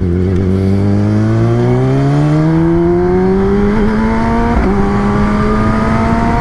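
Kawasaki ZX-10R's inline-four engine pulling in gear, its pitch rising steadily, then dropping a step at an upshift about four and a half seconds in and climbing again.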